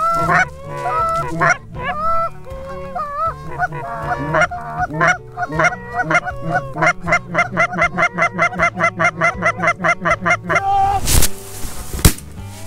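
Canada goose honks and clucks, speeding up midway into an even run of short clucks about five a second. A loud sharp thump near the end.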